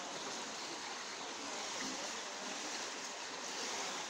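Floodwater flowing steadily through the gaps along the bottom edge of a steel gate.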